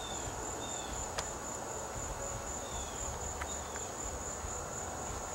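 Steady, high-pitched trill of crickets, with a low rumble underneath and a few faint, short falling chirps.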